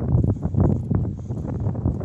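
Footsteps on paving stones picked up by a smartphone's microphone while it is carried, many irregular knocks over a low rumble of handling noise.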